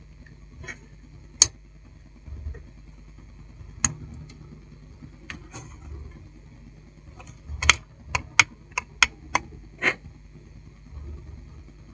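Light clicks and taps from a satellite receiver's sheet-metal case and plastic front panel being handled, scattered at first and then a quick run of clicks about eight to ten seconds in, over a faint steady hum.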